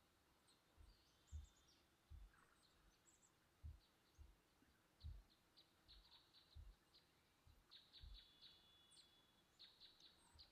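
Near silence: room tone with faint scattered clicks and soft low thumps.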